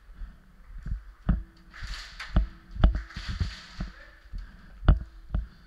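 Irregular dull thumps and knocks, about one or two a second, from the body-worn camera shaking and from footsteps as the player moves. Two brief hissy rustles come around two and three and a half seconds in.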